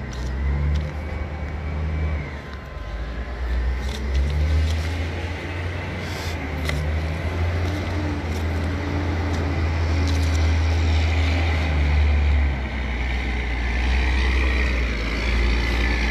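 Heavy diesel engine running with a steady low rumble, joined by a few sharp knocks. Near the end the engine note rises and a whine climbs with it.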